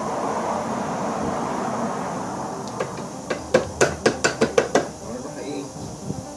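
A steady rushing noise, then about nine sharp metal taps in quick succession, roughly four a second, during work on a driveshaft U-joint.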